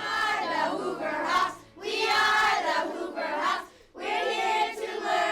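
A group of children singing together in phrases of about two seconds, with short breaths between them.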